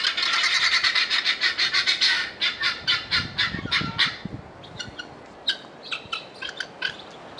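A flock of birds calling: a dense run of rapid, high calls that thins out after about two seconds and stops around four seconds in, followed by scattered single calls.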